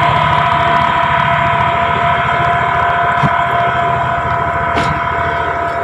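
Small boat engine running steadily as a wooden longboat moves along the river: an even, rapid low drone with a steady whine above it.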